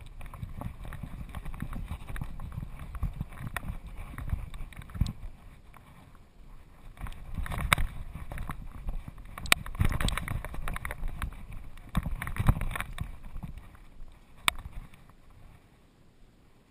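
Rumbling and bumping handling noise from a GoPro strapped to a dog's back as the dog moves over rock, with scattered knocks and a few sharp clicks. It eases off briefly partway through and fades near the end.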